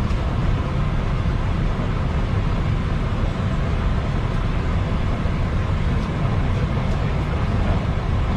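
Steady low rumble inside a Boeing 737 cockpit with the engines running, in heavy rain.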